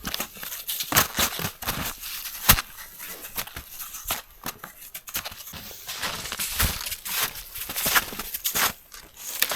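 Twigs and small branches being snapped and broken for firewood: an irregular series of sharp cracks and rustles, the loudest crack about two and a half seconds in.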